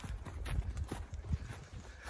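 Footsteps crunching over a thin layer of snow on frozen grass, a steady walking pace of about two steps a second.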